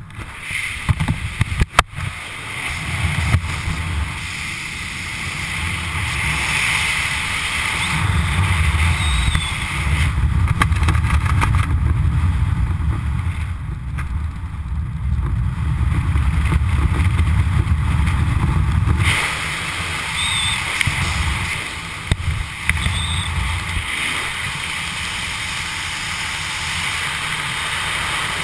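Wind buffeting the camera's microphone during a descent under an open parachute canopy: a rumbling rush that swells from a few seconds in and eases off past the middle. A few sharp clicks near the start.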